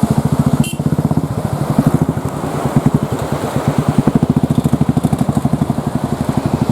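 A motorcycle engine running steadily at low revs, with an even pulsing beat of about ten to twelve beats a second.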